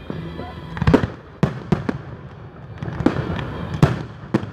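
Aerial fireworks shells bursting in quick succession: about six sharp bangs, the loudest about a second in and another near the end.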